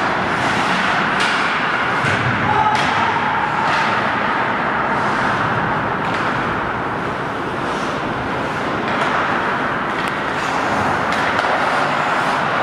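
Ice hockey play in a rink: a steady scrape of skates on the ice with several sharp knocks of sticks and puck, most of them in the first few seconds and a few more near the end.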